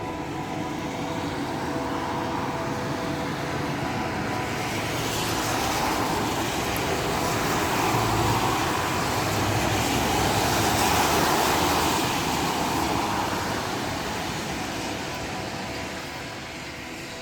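A broad rush of passing-vehicle noise swells over several seconds, peaks about midway and fades away. Beneath it runs a steady hum of several held, horn-like tones, plain near the start and again at the end.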